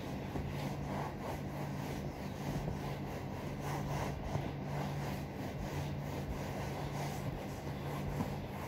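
A cloth rubbing back and forth over a leather sofa, scrubbing the upholstery clean with toothpaste, in repeated soft strokes over a steady low hum.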